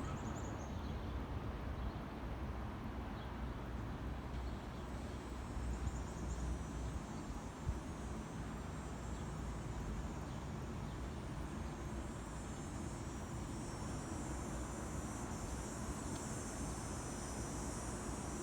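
A cicada's high, shrill buzz comes in faintly about five seconds in and swells to its loudest near the end, over a steady low rumble.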